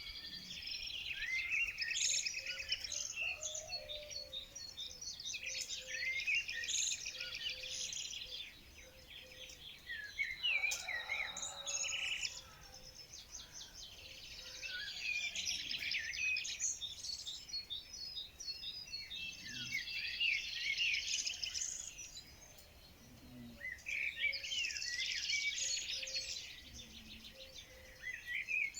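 Songbirds singing in bursts of rapid chirps and trills, a few seconds at a time, with short quieter lulls between the bursts.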